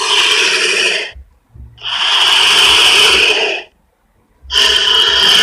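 Giant anaconda creature sound effect: harsh, raspy hisses, three in a row, the middle one about two seconds long, with a faint low rumble beneath.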